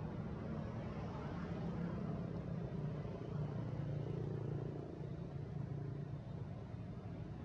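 Steady low hum of an engine running, with its pitched drone strongest in the middle and easing slightly near the end.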